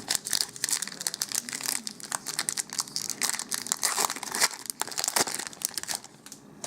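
Plastic-foil Magic: The Gathering booster pack wrapper being crinkled and torn open: a dense run of sharp crackles that eases off near the end.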